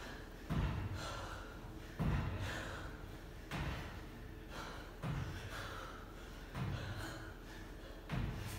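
A man breathing hard through a set of toes-to-bar on a pull-up bar, with a sharp exhale about every second and a half, one with each rep.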